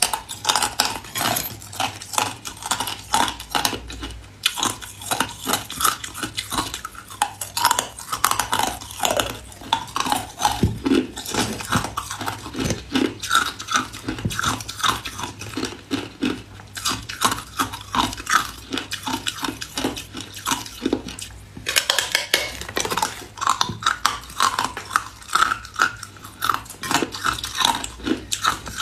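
Teeth biting into and crunching a slab of hard ice: a quick, continuous run of crackling crunches and squeaky scrapes as pieces snap off and are chewed, with brief pauses about 4 seconds in and again about two-thirds of the way through.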